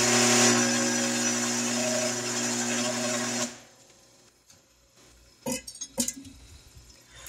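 The compressor's Craftsman "5 HP" electric motor running unloaded with its belt off, a steady hum that stops suddenly about three and a half seconds in. Two faint knocks follow a couple of seconds later.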